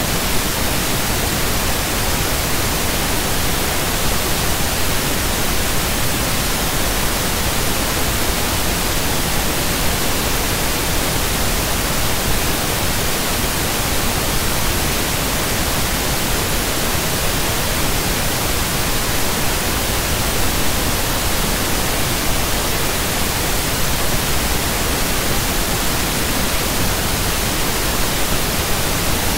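Loud, steady static hiss, even from low to high pitches and unchanging, with no other sound in it.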